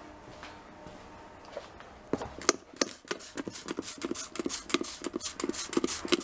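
Trigger spray bottle of glass cleaner squeezed over and over, a quick run of short spritzes about three or four a second, starting about two seconds in.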